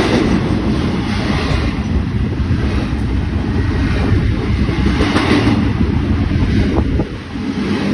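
Train passing with a loud, steady low rumble, mixed with wind buffeting the microphone; no horn sounds.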